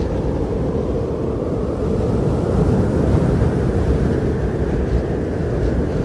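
Strong blizzard wind blowing in a steady deep rush, swelling slightly for a moment about halfway through.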